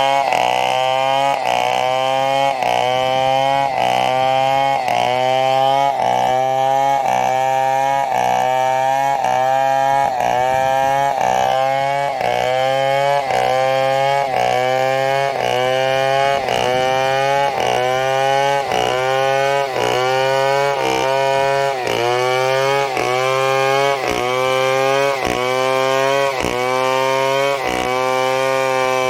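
Chainsaw running under load as it cuts a coconut palm trunk for lumber, its engine pitch rising and dipping back about once a second as the cut goes on.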